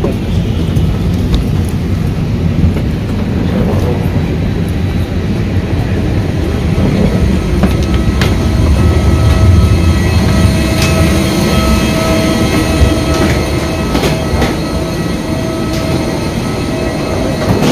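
Steady low rumble of a parked airliner and the machinery around it while passengers get off. A steady whine joins about halfway, and scattered knocks are heard.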